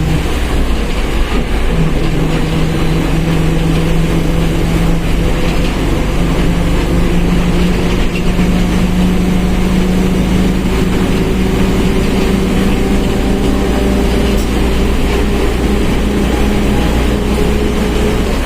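Mercedes-Benz OF1721 BlueTec 5 bus running under way, its drivetrain giving a steady hum with a whine from the differential that rises slowly in pitch through the middle, then holds.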